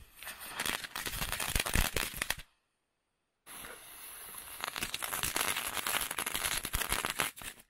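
Small ground crackling firework going off: a dense, rapid run of pops and crackles. It breaks off suddenly after about two and a half seconds, and a second run starts a second later and lasts about four seconds.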